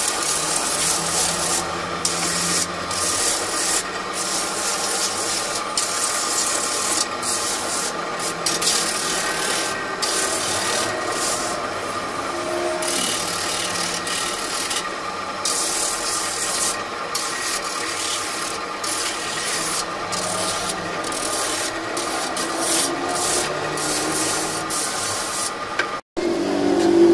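Willow cricket bat blade being shaped on a spinning drum sander: a steady machine whine under repeated rasping scrapes each time the wood is pressed to the abrasive drum. It cuts off abruptly about a second before the end.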